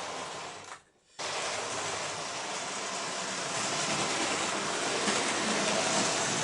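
Hornby model trains running on the layout's track: a steady whirring rush of small electric motors and wheels on rail. The sound cuts out sharply for a moment about a second in, then resumes and grows a little louder.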